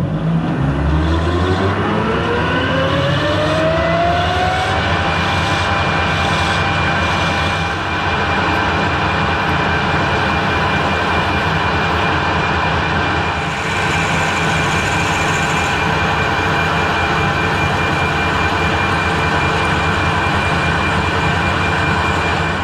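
Harrison metal lathe starting up: the motor and gear whine climbs in pitch over the first few seconds, then settles into a steady high whine with a low hum as the four-jaw chuck spins. A drill in the tailstock chuck is cutting into the end of the steel bar.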